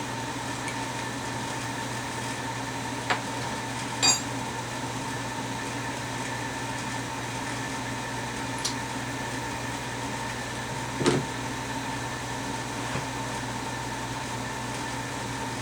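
A steady mechanical hum with several pitched tones, like a fan or air-conditioning unit running in a small room. A few short clicks and small knocks come through it, most plainly about 3 and 4 seconds in and about 11 seconds in.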